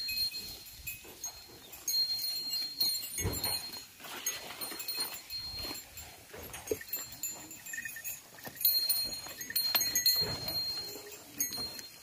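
Cattle grazing close by, tearing and chewing grass in irregular crunches, while small birds chirp in repeated high, thin notes.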